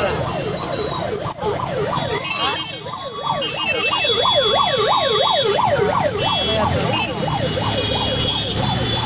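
Ambulance's electronic siren in a fast yelp, its pitch sweeping up and down about four times a second, over the low running of many motorcycle engines.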